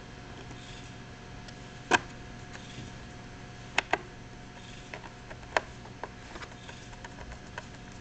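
Small screws being fitted and driven into a metal connector panel with a screwdriver: irregular sharp clicks and taps of tool and screw on metal. The loudest comes about two seconds in, a close pair follows near the middle, and lighter ticks come after, over a faint steady hum.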